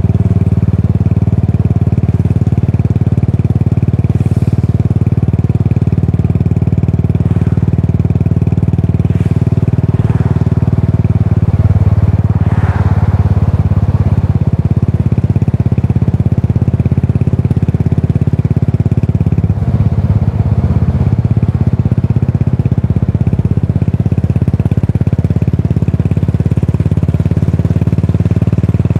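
Exhaust of a Yamaha SR400's air-cooled single-cylinder engine, running steadily through a Goods tapered-cone slip-on muffler with a low, even note.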